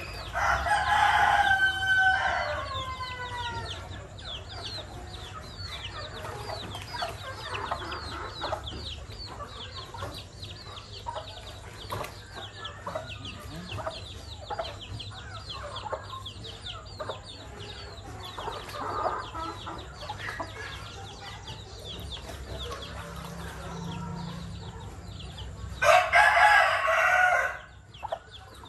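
A rooster crows twice, loud, once about a second in and again near the end; the first crow trails off in falling notes. Between the crows come softer clucks and a steady stream of quick high chirps.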